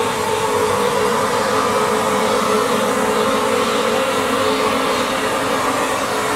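Vapor blasting cabinet running: the nozzle jets compressed air and a water-and-abrasive slurry onto an aluminum motorcycle rear hub, a loud steady hiss with a constant hum underneath.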